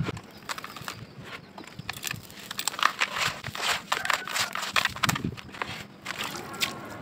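Hands crushing and crumbling dry, gritty soil clumps: an irregular run of crunches and crackles.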